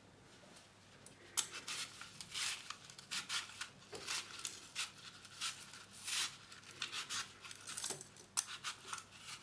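Quiet kitchen-utensil handling: a run of short scrapes and clicks, a few a second, starting about a second and a half in, such as a knife working on apples on a board.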